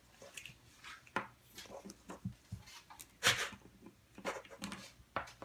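Small plastic toy pieces and packaging being handled: scattered light clicks, taps and rustles, with one louder knock about three seconds in.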